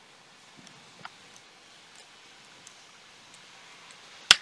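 Light clicks and taps of a Huawei MediaPad's replacement screen being pressed by hand into the tablet's frame, with one sharp click just after four seconds in.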